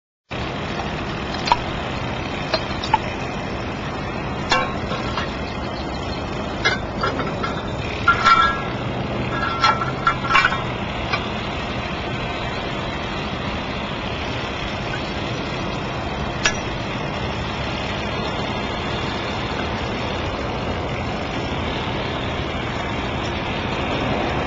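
A steady outdoor background noise with scattered sharp metallic clanks and knocks, mostly in the first half, some briefly ringing, as a steel Oz-Post ground spike and post are handled and set in place.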